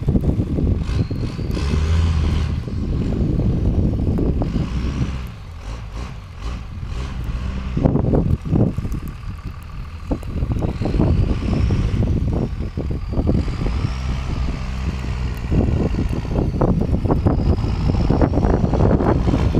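Second-generation Cummins inline-six turbo diesel in a pickup truck, revved up and down several times. A high whine rises and falls with the revs.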